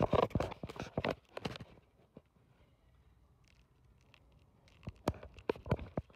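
A quick run of sharp taps and knocks, then a quiet stretch, then a second shorter run of taps near the end.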